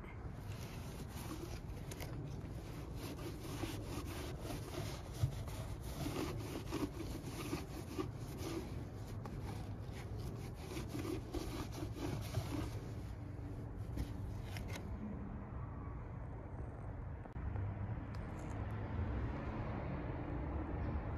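Hand work on a car engine's intake manifold: light scraping and rubbing of metal parts, with many small irregular clicks that stop about two-thirds of the way through.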